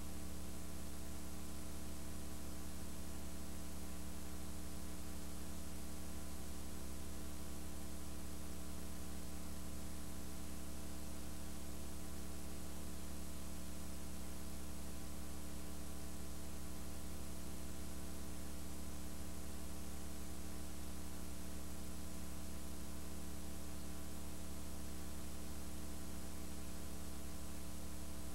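Steady electrical mains hum with a constant hiss, unchanging throughout; no arena sounds stand out above it.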